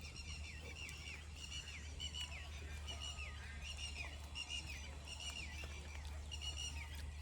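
Birds calling: many short, repeated chirping calls, several falling in pitch, over a steady low hum.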